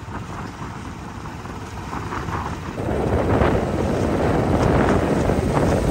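Motorcycle under way on the road, its engine running with wind rushing over the microphone; the sound grows louder about three seconds in.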